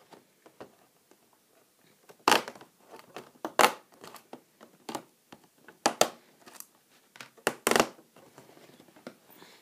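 Cardboard door of a Lego advent calendar being pushed in and torn open by hand, with a handful of sharp crackles and crinkles of cardboard starting about two seconds in.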